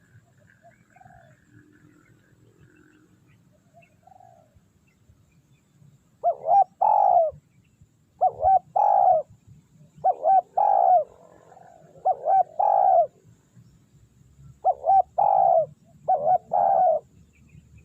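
Spotted dove cooing: a few faint coos, then from about six seconds in a loud, repeated phrase of a short note followed by longer rolling coos, given six times about every two seconds.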